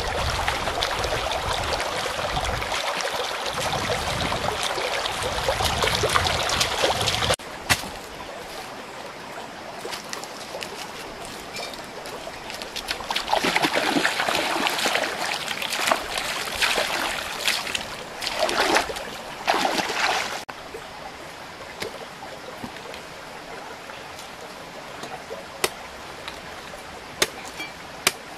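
Shallow stream water running, with hands splashing and scooping in the water about halfway through. It starts with a loud rush of noise that cuts off abruptly after several seconds, and a few sharp taps come near the end.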